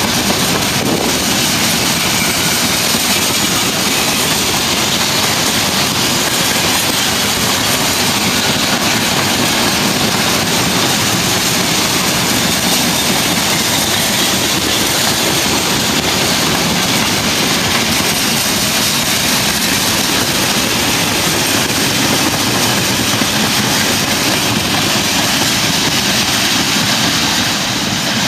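Freight train of grain hopper wagons rolling past steadily, a continuous rumble of wheels on the rails that eases slightly near the end.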